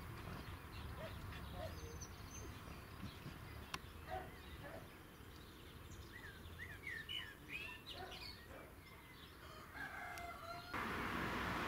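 Faint rooster crowing with small birds chirping, over a low steady rumble of wind. Near the end a louder steady hiss cuts in.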